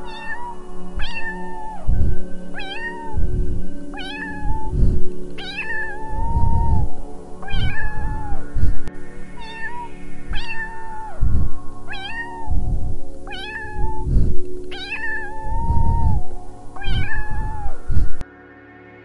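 Kitten meowing over and over, a short high mew about once a second, more than a dozen times, over background music. It stops just before the end.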